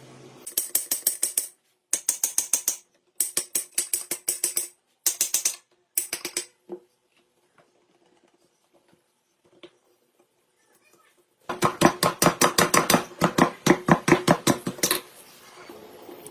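Rapid, rhythmic hand scrubbing or scraping strokes, several short runs with pauses, then a longer, steadier run near the end.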